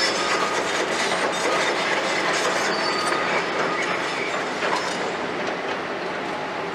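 Hitachi 210 crawler excavator moving over concrete demolition rubble: steel tracks and bucket clanking, scraping and briefly squealing over the steady diesel engine. The clatter eases about five seconds in.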